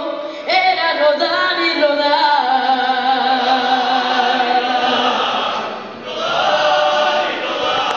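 A young boy singing a ranchera with mariachi accompaniment of violins and guitars, holding long, wavering notes; the sound dips briefly about six seconds in, then the music swells again.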